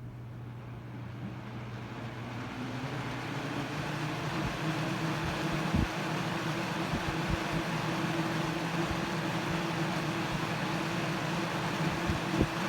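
A 1981-82 Galaxy Model 3712 12-inch box fan running on high. Its air rush builds over the first few seconds as it comes up to speed, then holds steady over a low buzzing hum of the kind collectors liken to a beehive. A couple of brief knocks come about six seconds in and near the end.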